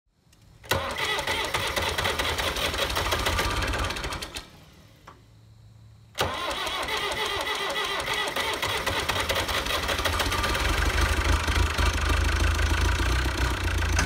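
Diesel engine of a White Field Boss 2-60 tractor starting and running. It comes in suddenly about a second in, falls away near four seconds, cuts back in abruptly about six seconds in and keeps running, its deep low note growing stronger toward the end.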